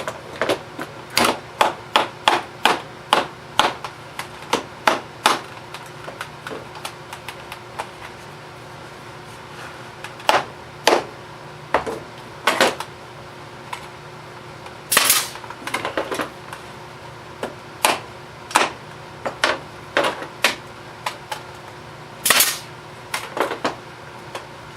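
Brad nailer shooting brads into wood, a long irregular series of sharp snapping shots, some in quick runs and pairs, the loudest about midway and a couple of seconds before the end.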